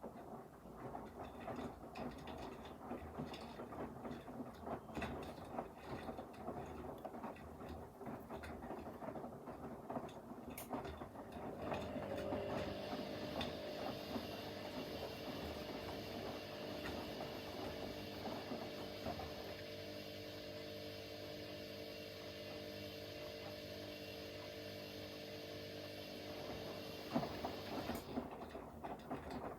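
Front-loading washing machines, a Blomberg LWF194520QW and a Hoover H3W04105TARR4-80, running mid-cycle. The drum tumbles with uneven clicks and swishes. About twelve seconds in, a steady motor whine with several tones sets in and holds until shortly before the end.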